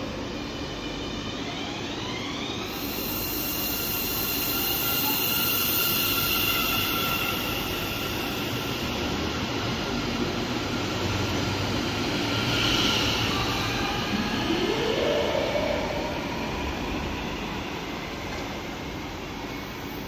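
Siemens Mireo electric multiple unit (DB class 463) on the move along the platform, with the rumble of wheels on track. Its traction motors whine, rising in pitch about two seconds in and again near the end as the train gathers speed.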